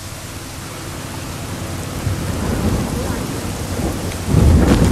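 Thunder rumbling, building from about a second in and loudest near the end, over the steady hiss of rain starting to fall.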